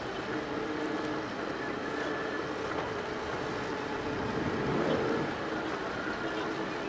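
Delta 3D printer running a print: its stepper motors whine in shifting tones over a steady whir as the print head moves.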